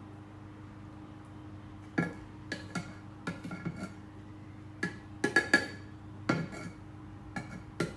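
Utensil clinking against a pot and dishes: about a dozen light clinks, some with a short ring, most closely bunched about five seconds in, over a steady low hum.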